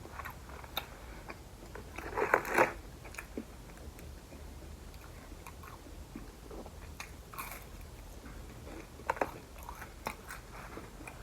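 Close-miked chewing of a mouthful of a McDonald's bacon McDouble burger: soft wet mouth clicks, with a few louder short bursts of chewing.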